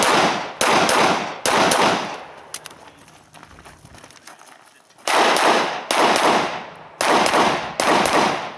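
Semi-automatic pistol fired in quick shots, each followed by a short echo: two shots in the first second and a half, a pause of about three seconds, then four more shots about a second apart.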